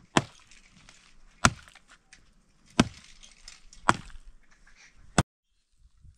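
A hand pick striking hard, stony soil in a slow, steady rhythm: five sharp strikes, about one every second and a quarter.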